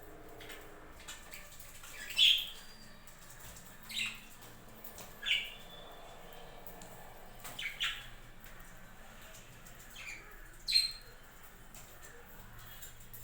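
Budgerigars giving short, sharp squawking calls, about six spaced a second or two apart, over faint background chatter.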